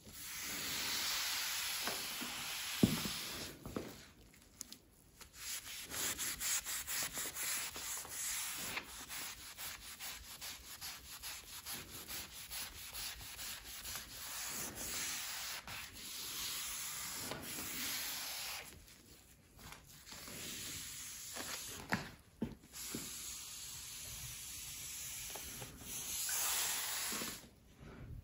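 A cloth scrubbing a quartz worktop in repeated rubbing strokes, stopping briefly a few times, with one sharp knock about three seconds in.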